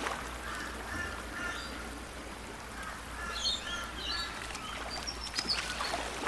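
Birds chirping in short, repeated calls over a steady outdoor background hum.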